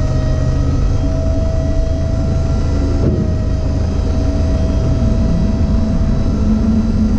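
Hydraulic tipper pump running steadily as it raises the tipper body of a 2011 Ford Transit tipper truck: a steady whine over a low rumble.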